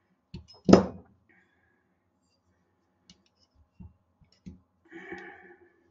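Steel parts of a stainless Kimber 1911 pistol being handled during reassembly: one sharp metallic clack under a second in, then a few faint light clicks.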